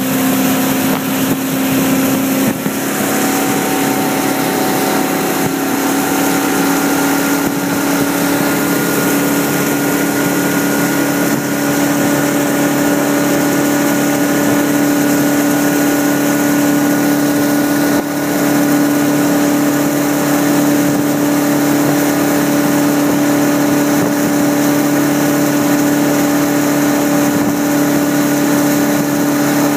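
Towboat engine running steadily at speed, about 36 mph, under a continuous hiss of water spray thrown up by a barefoot skier's feet. The engine's pitch steps up slightly a couple of seconds in and then holds steady.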